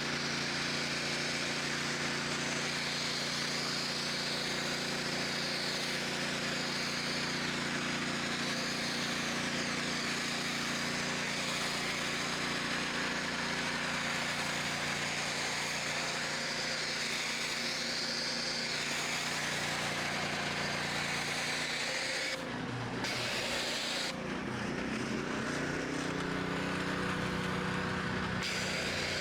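A 3200 psi pressure washer running loud and steady, its foam cannon spray hissing. About three-quarters of the way through, the spray stops briefly and the engine note wavers before settling again.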